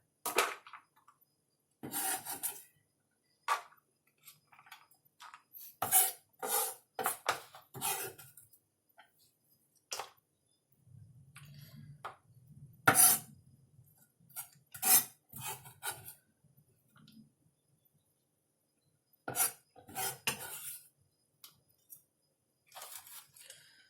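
Kitchen knife mincing shallots on a cutting board: irregular clusters of sharp knocks with short pauses between them.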